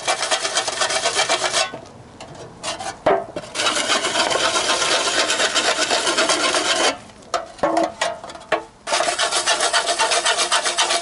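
Hand file rasping along the cut edge of a sheet-steel fuel can to smooth it. There are three long spells of rasping, with short pauses and a few brief scrapes between them.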